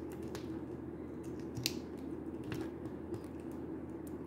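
Faint clicks and light rubbing of a plastic action figure's shoulder and arm joints being moved by hand, a few scattered ticks over a steady low hum.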